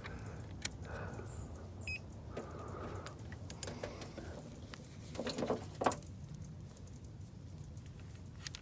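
Small clicks and rustles of a multimeter and its test leads being handled to take a battery voltage reading, with one short electronic beep about two seconds in and a louder bout of rustling past the middle, over a low steady hum.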